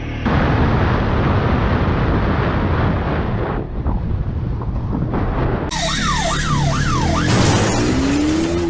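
Motorcycle riding noise: a steady low engine rumble under heavy rushing wind. From about six seconds in, a siren-like wail rises and falls about four times, and near the end a steady engine note begins to climb.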